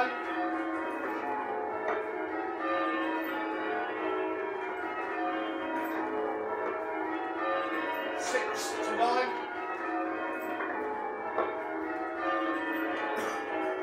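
Church tower bells being change-rung, struck one after another in a steady continuous rhythm, their tones overlapping and ringing on.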